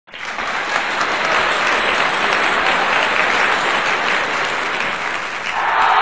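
Applause: a crowd clapping steadily, a dense crackle of many hands. Just before the end it cuts over to a different steady hiss.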